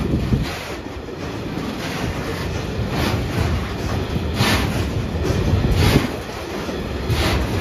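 Freight train of Network Rail hopper wagons passing close by: a steady low rumble of steel wheels on rail, with a clatter about every second and a half as each set of wheels crosses the rail joints.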